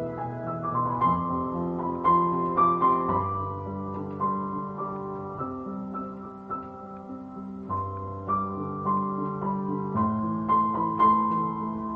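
Background piano music: a melody over held chords.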